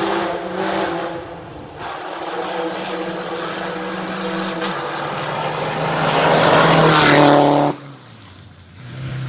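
Rally car driven hard along a gravel stage: the engine at high revs with a hiss of gravel under the tyres. It grows louder, is loudest about seven seconds in, then drops off suddenly.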